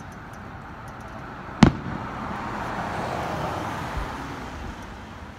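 A single sharp bang of an aerial firework shell bursting about a second and a half in. A car passes close by over the next few seconds, rising and fading, with a faint thud near the end.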